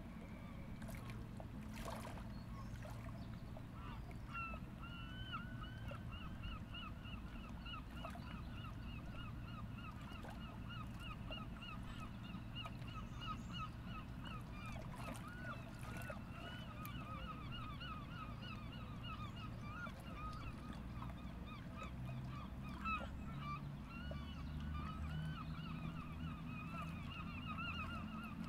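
A flock of geese honking in a dense, continuous chatter of short calls, starting about four seconds in, over a low steady rumble.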